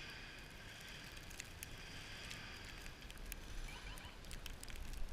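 Pickup truck stuck in deep snow, its engine running and its wheels spinning as it works to get free, heard faintly as a steady rumble and hiss with scattered small clicks.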